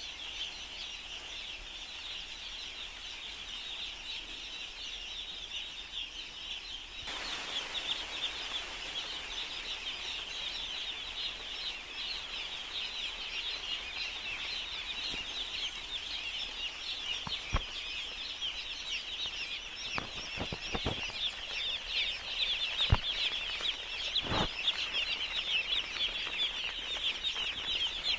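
A large flock of poultry chicks peeping continuously, a dense mass of many short high cheeps overlapping at once. A steady hiss comes in suddenly about a quarter of the way through, and a handful of sharp knocks sound in the second half.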